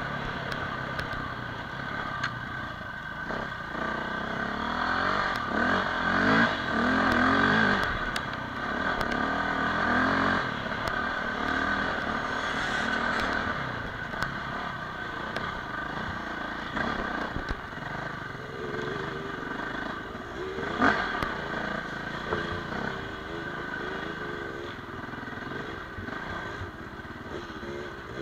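Dirt bike engine heard from on board, revving up and down as the bike rides a rough trail, with knocks and clatter from the bike over bumps. One sharp knock comes about three quarters of the way through.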